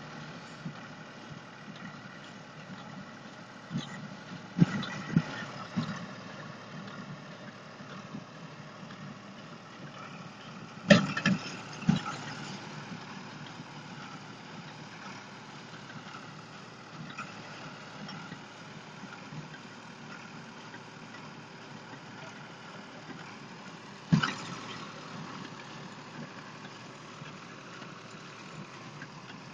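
Tractor engine running steadily at a distance while pulling a small square baler in a hay field. Sharp knocks come in a cluster about four to six seconds in, a pair near the middle, and one more near the end.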